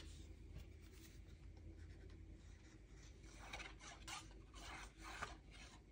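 Faint scratchy rubbing of a liquid glue bottle's tip drawn along a strip of patterned paper, several short strokes starting about three seconds in after a near-silent stretch.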